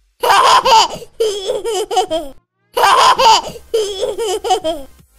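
High-pitched laughter in two bouts of about two seconds each, with a short pause between.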